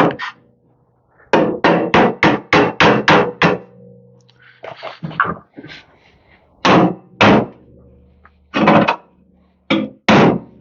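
Hammer blows straightening the bent sheet-metal hood of a Bolens garden tractor where the hinge mounts. A quick run of about eight strikes at roughly four a second comes first, then single and paired blows spaced out toward the end.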